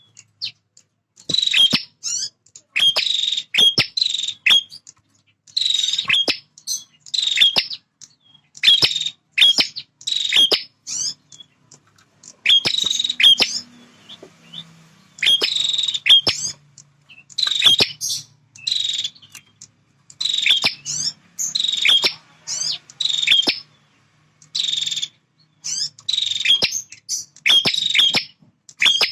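Male prinia (prenjak) giving its territorial song: quick clusters of short, high-pitched chirps repeated again and again, with brief gaps and one longer pause about halfway through.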